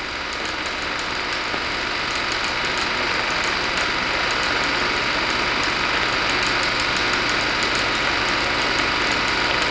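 Steady hiss and low hum of an old film soundtrack between narration lines, with faint rapid ticking of crackle. No distinct sound effect stands out.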